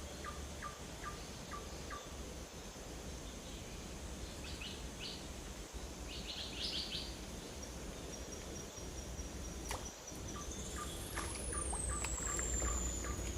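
Outdoor birdsong and insects: short repeated chirps and a quick chirping flurry over a steady high-pitched insect drone. About two-thirds in, the drone swoops up in pitch and then slowly falls.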